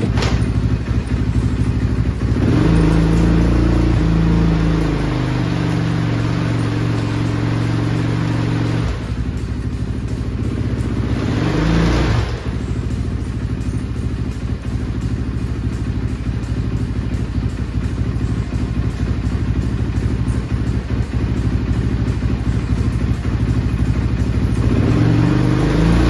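Dirt bike engine of a snowbike running on a stand. It is revved up and held for several seconds, then blipped twice more.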